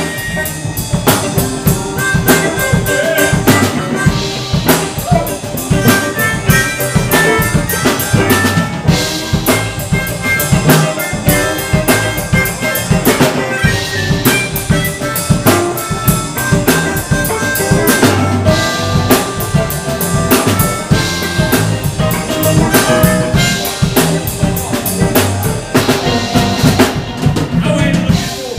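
Live electric blues band playing, with a drum kit beating steadily under electric guitars and bass and a lead line of long held notes.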